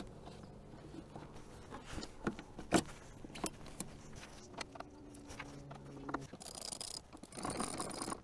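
Plastic battery ventilation duct pieces being handled and pushed together: scattered clicks and light rattles, with one louder click almost three seconds in and a stretch of rustling and jingling near the end.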